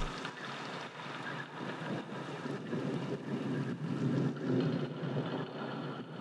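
Faint steady rushing noise in a break in the background music.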